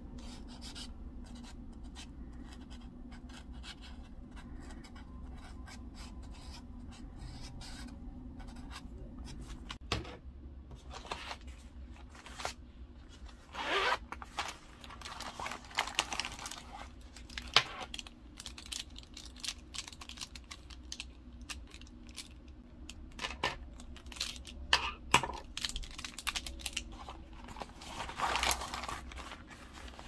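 Scratching and rubbing of pen and marker strokes on journal paper, with paper handling. It comes in short irregular bursts with a few clicks, growing busier from about a third of the way in, over a steady low hum.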